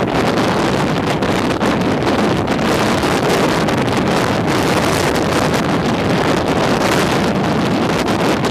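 Hurricane Sandy's storm wind buffeting the microphone in a loud, steady, gusty rush.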